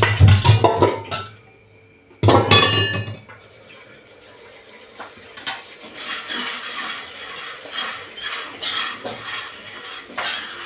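Metal pots and dishes being handled: a run of loud clattering knocks, a short pause, then one sharp clank that rings, followed by lighter clinks and rattling.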